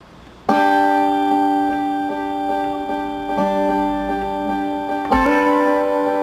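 Acoustic guitar playing a slow instrumental. A ringing chord comes in about half a second in, picked notes sound over it, and a new chord is struck about five seconds in.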